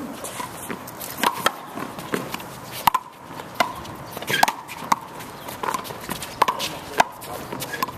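Handball rally: a small rubber handball smacked by hand and bouncing off a concrete wall and floor, a string of sharp cracks every half second to a second, with players' footsteps scuffing on the concrete.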